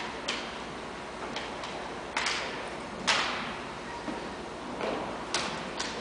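Sharp wooden slaps and knocks of a drill rifle being spun, caught and handled in an armed exhibition drill routine, about nine irregular strikes, the two loudest a little after two seconds and about three seconds in, echoing in a large gym.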